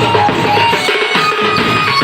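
Music: drums and percussion under a melody of short held notes, from a Holi festival song.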